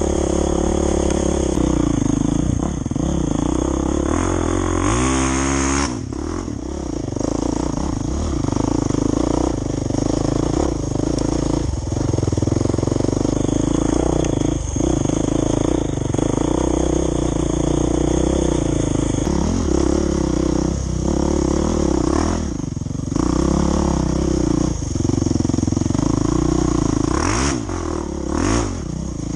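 Off-road dirt bike engine running hard, revving up and down as the throttle opens and closes, with a few short drops in revs.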